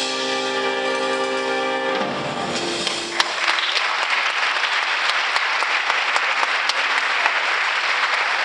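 Jazz big band holding a final chord that cuts off about two seconds in, followed by steady audience applause.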